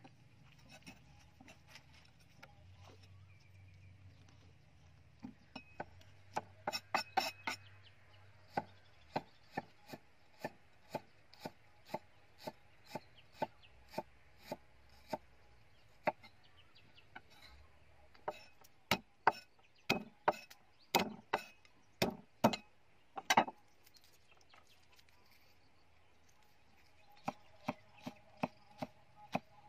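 Cleaver chopping pineapple and garlic on a round wooden chopping block: sharp knocks of the blade on the wood, at times a quick flurry, elsewhere a steady two strokes a second. A pause of a few seconds comes near the end before the chopping starts again.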